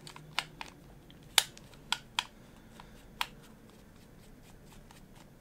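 Small screwdriver unscrewing the front screw from the frame of a Tokyo Marui Glock 19 airsoft pistol: about half a dozen sharp little clicks of metal on screw and frame in the first three seconds or so, the loudest about a second and a half in.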